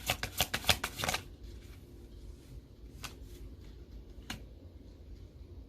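Tarot cards being shuffled by hand: a quick run of card clicks for about the first second, then two single card snaps a few seconds in.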